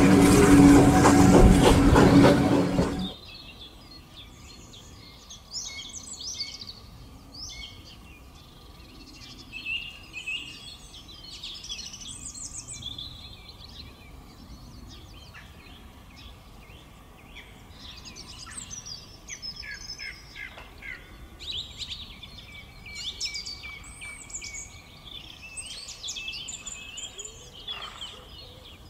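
A train running past, loud with a steady drone, cut off abruptly about three seconds in; after that, several birds singing and chirping with varied short calls and trills over quiet outdoor ambience.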